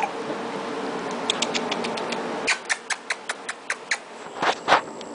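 An excited dog scrabbling about: a quick run of light clicks, about five a second, then two louder scuffs near the end.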